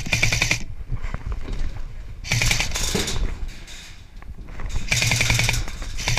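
Airsoft M4 rifle firing three bursts of rapid full-auto fire, its gearbox rattling and whirring with each burst: one tails off about half a second in, a short one comes in the middle, and a longer one starts near the end.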